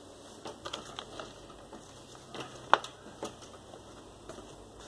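Light handling noise: scattered soft clicks and taps as a hand presses along a fabric sofa's upholstery, with one sharp click near the middle.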